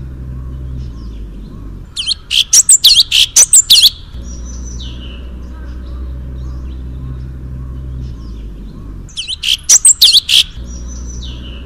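Cage songbird singing: two loud bursts of rapid, looping chirps, each about a second and a half to two seconds long, the first about two seconds in and the second about nine seconds in, each followed by a falling whistle. Under the song run a steady low hum and faint scattered chirping.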